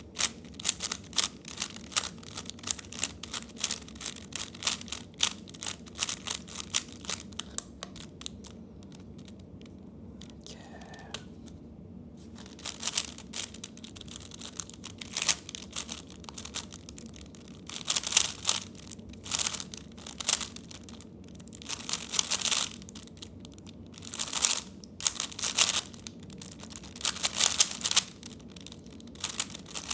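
A 3x3 Rubik's cube being turned fast by hand: rapid runs of plastic clicking and clacking in bursts, with a few seconds' pause around ten seconds in before the turning starts again.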